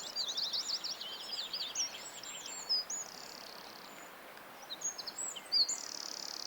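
Several songbirds singing and chirping: quick, looping high whistled notes and short trills, thinning out in the middle and picking up again near the end, over a faint steady background hiss.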